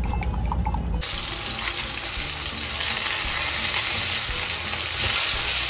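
Beef steaks searing in oil in a frying pan: a loud, steady sizzle that starts suddenly about a second in.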